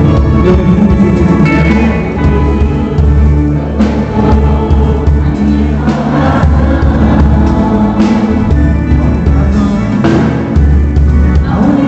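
Live worship band playing a song, with sustained bass, drum kit with cymbal crashes every couple of seconds, and voices singing.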